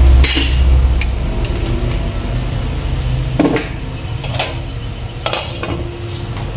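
Clinks and knocks of kitchenware at a stainless steel pot on a gas stove, its glass lid being set on near the end. There are a few sharp knocks, the loudest about three and a half seconds in, over a low rumble in the first second or so.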